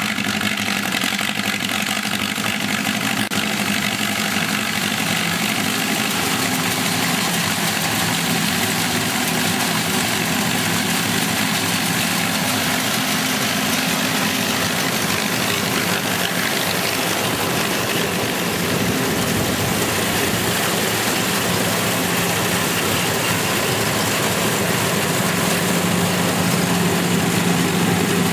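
The Ford Model A four-cylinder engine on a 1931 Gleaner pull-type combine running steadily.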